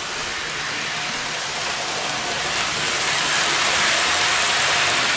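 Model trains running on the layout's track: the steady whirr and rush of the locomotive motors and wheels, swelling slightly in the second half.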